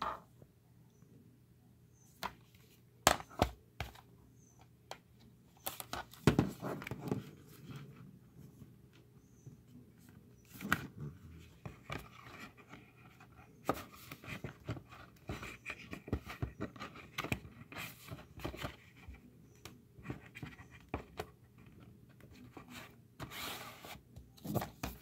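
Hands handling a Blu-ray box set's clear plastic case and cardboard box, making irregular clicks, taps and rustling. The packaging knocks sharply against the table a few times.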